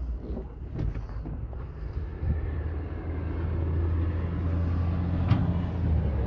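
Heavy truck engine running with a steady low hum that grows louder about two seconds in, with a few sharp clicks.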